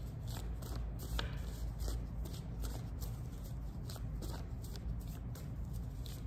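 A deck of cards being shuffled by hand: a string of soft, uneven card clicks and slaps over a low steady hum.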